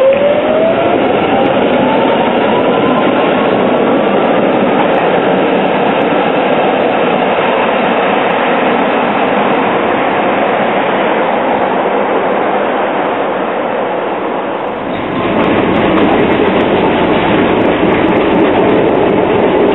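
PCC-type tram pulling away, its traction motor whine rising steadily in pitch over the first few seconds and then settling into steady running noise. About fifteen seconds in it changes to the louder, rumbling ride noise heard inside a moving tram.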